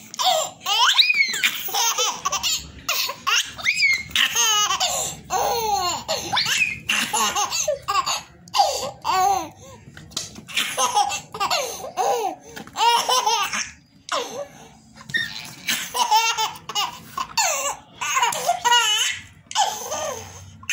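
Toddler laughing in repeated bursts of belly laughs, with short pauses between them.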